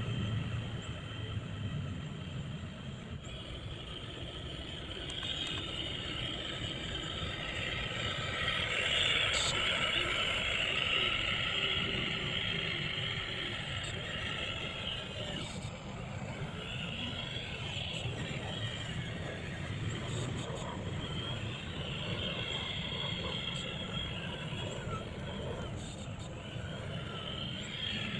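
Radio-controlled model Hino 500 truck running steadily, with a small motor and gears whining and a low rumble underneath.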